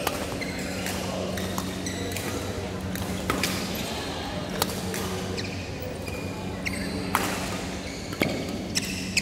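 Badminton rally: rackets striking the shuttlecock in sharp cracks at irregular intervals, about one a second, with shoe squeaks on the court surface. A steady low hum runs underneath, and the hits ring in a large hall.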